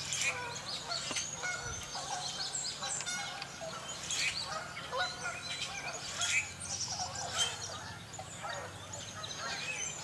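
A steady chorus of many birds calling at once: short overlapping calls without a pause, with the honking of tundra swans and Canada geese among them.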